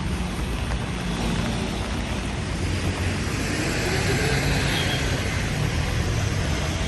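Traffic on a wet city street: a steady low rumble of engines with tyre hiss on wet road, swelling as a vehicle passes about four seconds in.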